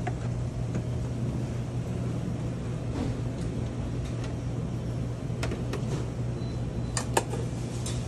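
Steady low mechanical hum, with scattered light clicks of metal serving tongs against salad-bar pans, two close together about seven seconds in.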